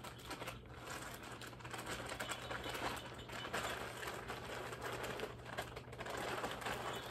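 Plastic packing wrap rustling and crinkling in a cardboard box as hands dig through it, in an uneven run of small crackles.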